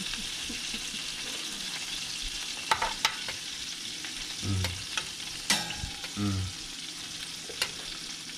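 Fish sizzling in its hot juices in a glass baking dish in a 400-degree oven, a steady hiss. A metal spoon clinks sharply against the dish a few times as the juices are basted over the fish.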